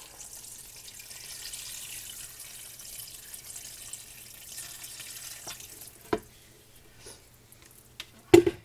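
Beef broth poured from a container into a stainless steel stockpot full of beef chunks, mushrooms and onions: a steady splashing pour that stops about six seconds in. Then a few sharp knocks, the loudest near the end, as a spatula goes into the pot.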